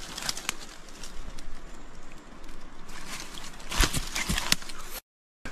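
Scattered clicks and knocks from a trail camera being handled and its buttons pressed, over a steady hiss of forest background. The sound drops out completely for a moment near the end.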